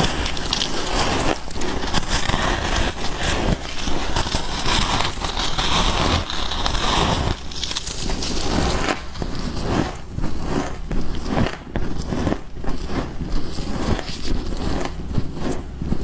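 Close-up crunching and chewing of soft freezer frost, a dense crackling that breaks into separate crunches about halfway through.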